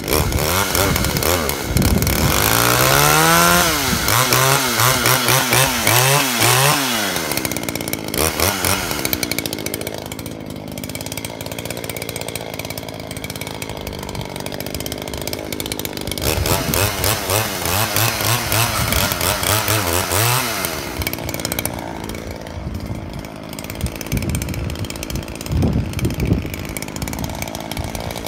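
Modified Poulan 2150 Woodsman two-stroke chainsaw running. It is revved up and down repeatedly in two bursts, early and again in the middle, and drops back to a lower idle between and after.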